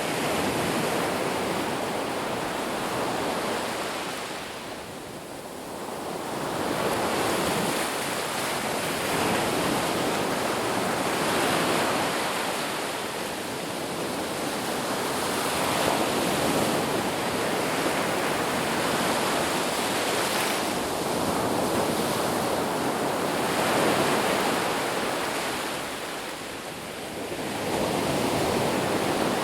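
Sea waves breaking and washing on a shore, a continuous rush of surf that swells and eases in slow surges, with lulls about five seconds in and near the end.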